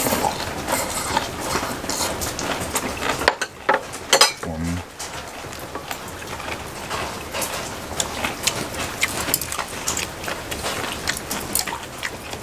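Steady rain falling, with many small patters and clicks in it, while someone eats with chopsticks from a bowl. A sharp click about four seconds in is the loudest sound, followed by a brief low hum.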